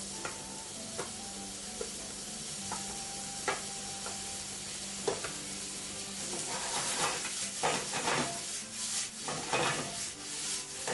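Chopped onion, celery, fennel and cherry tomatoes sizzling in a hot stainless steel sauté pan over a gas flame, with a few clicks of a utensil on the pan. From about six seconds in, repeated swishing strokes as the pan is tossed and the vegetables stirred.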